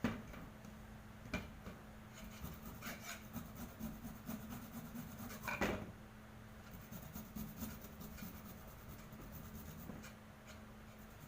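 Fresh ginger being grated by hand on a grater: repeated rasping strokes, with a few louder knocks along the way.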